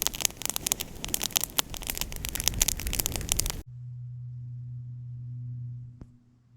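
Wood fire crackling and popping with dense, irregular snaps, which stops abruptly about three and a half seconds in. A steady low hum follows, with one sharp tick near the end.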